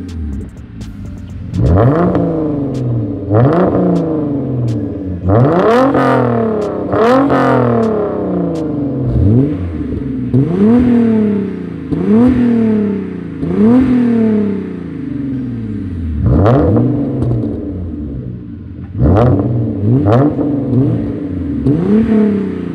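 Exhaust of a Hyundai Genesis Coupe's 3.8-litre V6 being free-revved, about a dozen quick blips of the throttle, each pitch rising sharply and falling back to idle.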